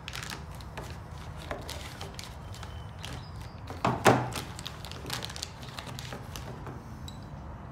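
Plastic parts bag crinkling as it is cut and pulled open, with one louder knock about four seconds in as a folding knife is set down on the tabletop.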